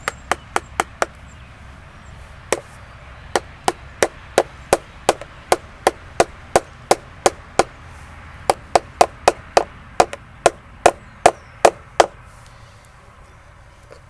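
A mallet driving a wide wood chisel into a log, about two to three sharp knocks a second in runs with short pauses, stopping near the end: carving bark off the log.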